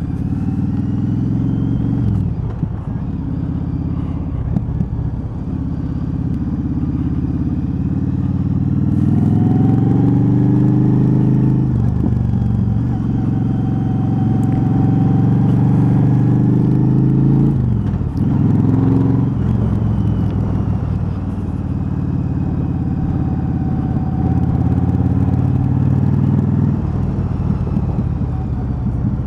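Cruiser motorcycle engine heard from the rider's seat while riding: the engine note climbs under acceleration and drops sharply at gear changes, about twelve and eighteen seconds in, with wind noise on the microphone.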